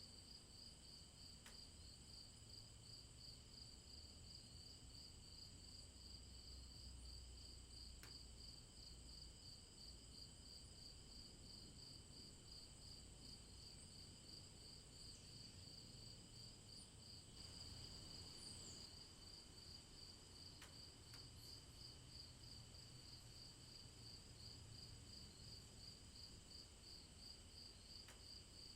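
Faint rainforest night insect chorus: crickets or similar insects trilling steadily, with one high pulsing trill over fainter steady tones above and below it, and a soft low rumble underneath.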